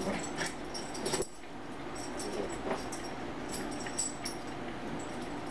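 Two small dogs play-fighting: scuffling with scattered light clicks, busiest in the first second or so.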